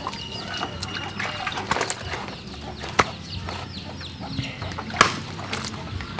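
A few sharp chops of a blade cutting up a goat carcass, irregularly spaced, over birds chirping and chickens clucking.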